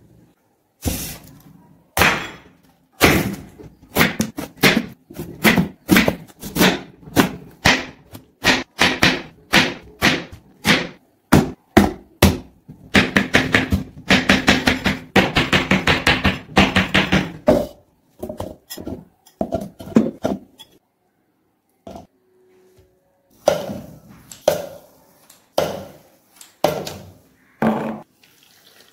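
A knife chopping pineapple on a wooden cutting board: a long series of sharp knocks, a quick run of rapid chops in the middle, and a few more strokes near the end.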